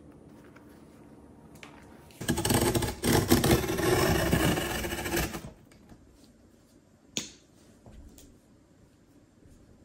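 Cardboard box being handled, rubbing and scraping against the surface for about three seconds, then a single sharp click about seven seconds in.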